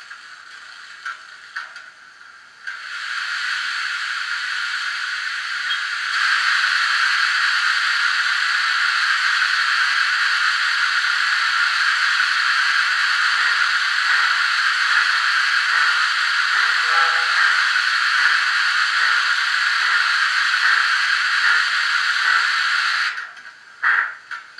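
Steam sound from an ESU LokSound V4.0 decoder's R class sound project, played through a model locomotive's speaker: a steady steam hiss that starts a few seconds in, grows louder about three seconds later, and cuts off suddenly near the end, followed by a few short sharp bursts.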